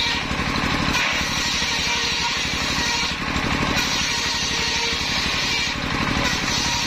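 Large table circular saw ripping waru (sea hibiscus) planks, its rasping cutting noise coming in stretches of about two seconds with short breaks between passes: it starts about a second in and breaks briefly around three seconds and again near six. Underneath runs the steady, fast chugging of the stationary engine that drives the blade by belt.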